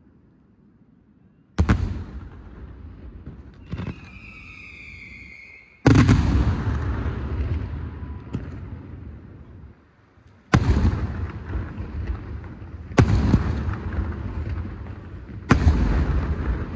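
Fireworks display: five heavy aerial shell bursts a few seconds apart, each a sharp boom followed by a long rolling echo. A smaller bang comes about four seconds in, and a high whistle lasts about two seconds before the second big boom.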